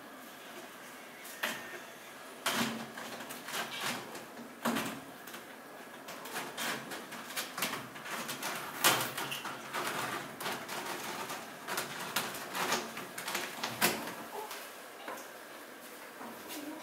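Kittens scrambling on wall-mounted carpeted cat shelves and clawing up a scratching post: irregular knocks, thumps and claw scrapes, the loudest knocks about nine and fourteen seconds in.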